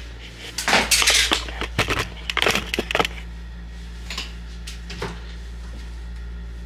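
Rummaging through belongings: about two seconds of rustling and clattering of small objects being handled, then a few light knocks. A steady low hum runs underneath.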